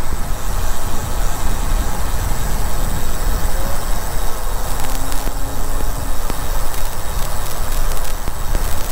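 Headwind buffeting the microphone of a camera on a moving bicycle: a loud, steady low rumble with a rushing hiss over it.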